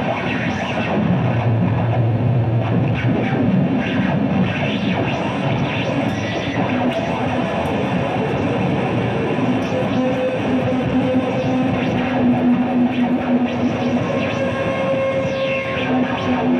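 Electric guitar played as noisy experimental drone: a dense, continuous wash of scraped and struck strings, with held low notes coming through in the second half.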